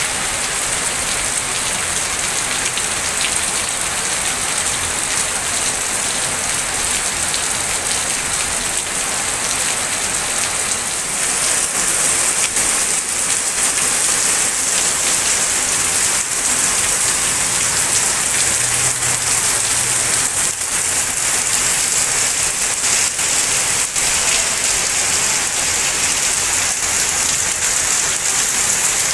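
Heavy rain pouring down and splattering on surfaces, a dense steady hiss of drops that grows a little louder about a third of the way through.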